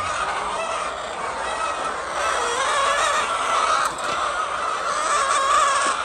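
A flock of chickens clucking and calling, many voices overlapping without a break.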